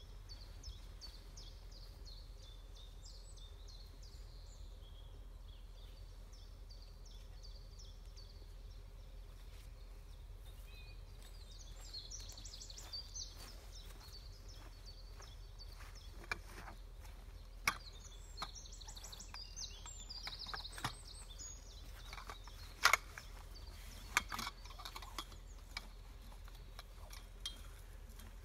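Small birds singing in woodland, with quick high chirps and trills coming and going. In the second half, a scatter of sharp knocks and clicks from people handling the tent; two stand out well above the rest, about two-thirds of the way in.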